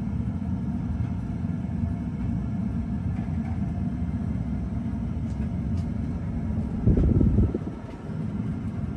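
42-inch Encon Traditional ceiling fan running on high, heard as a steady low rumble of moving air, with a louder surge about seven seconds in.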